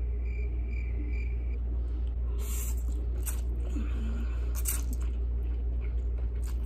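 Person slurping instant noodles off chopsticks, a few short wet slurps in the second half, over a steady low hum.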